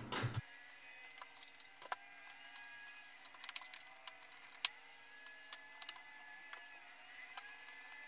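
Faint, scattered clicks and ticks of a hand screwdriver driving screws into the metal and plastic shell of a QNAP TS-451 NAS chassis, over a faint steady hum.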